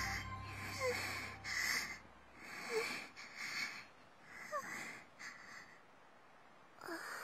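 A series of short, wheezy breaths from an animated goat character, about seven in all, coming in and out with brief pauses between them.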